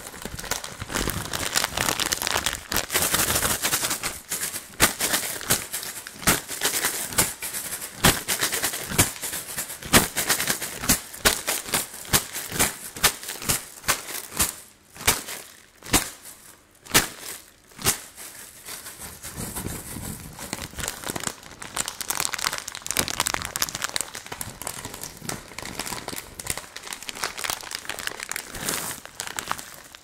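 Plastic candy bag crinkled and shaken fast, close to the microphone: a dense run of crackles with a few sharper snaps in the middle.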